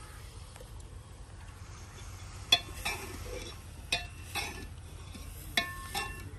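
Metal utensil clinking against a metal cooking pot three times, about a second and a half apart. Each strike rings briefly and is followed by a softer knock about a third of a second later.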